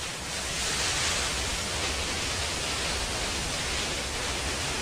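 Waterfall's steady rushing noise of heavy falling water, growing louder over the first second.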